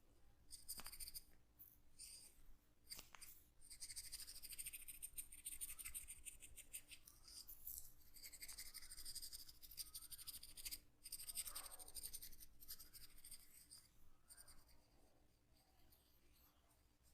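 Hands massaging an oiled scalp: soft, rapid scratching and rubbing of fingers through the hair, in long stretches with short pauses, fading out near the end.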